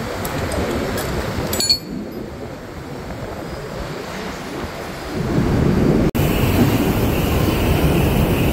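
A few light metal clinks from a gear puller being handled, over a low rumbling noise. About six seconds in, after a cut, a steady hiss of compressed air from a blow gun starts, blowing out an opened electric motor housing.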